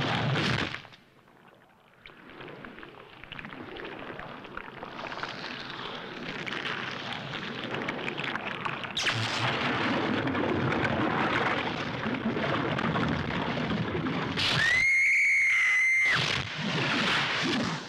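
Eerie film sound effects: a dense noisy swell that drops almost to quiet about a second in, builds back, and jumps louder about nine seconds in. Near the end a steady high whistling tone holds for about a second and a half, then cuts off sharply.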